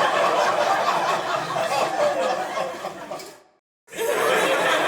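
Studio audience laughter: a crowd laughing together, fading out a little over three seconds in, then after a brief silence a new burst of crowd laughter starting just before the end.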